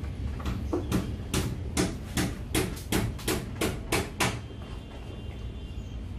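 Hands scrubbing shampoo lather into a wet long-haired cat's fur: a run of wet squelching strokes, about two or three a second, stopping a little past four seconds in. A low steady hum runs underneath.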